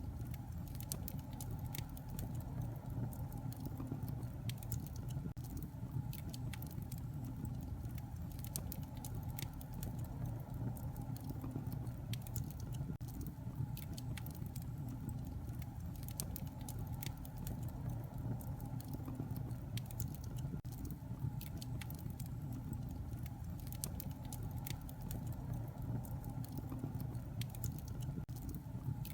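Wood fire burning in a fireplace: a steady low rumble under many sharp crackles and pops at irregular moments.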